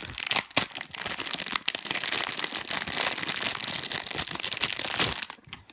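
Plastic squishy packaging crinkling and crackling as it is handled and opened, stopping shortly before the end.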